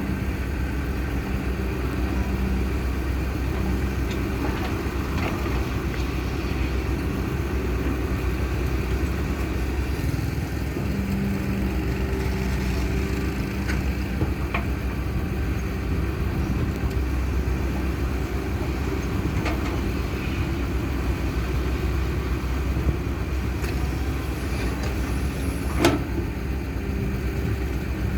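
Excavator's diesel engine running steadily while it digs, with a couple of brief sharp knocks.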